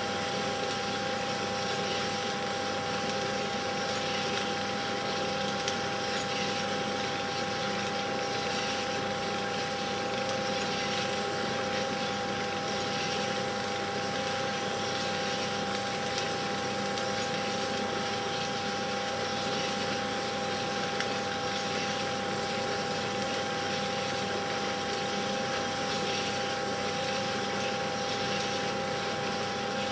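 Cine film projector running: a steady motor whirr with a constant high hum, unchanging throughout.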